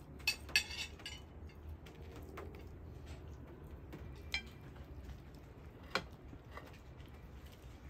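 Metal cutlery clinking against china plates while people eat: a quick cluster of ringing clinks just under a second in, then single sharp clinks about four and six seconds in.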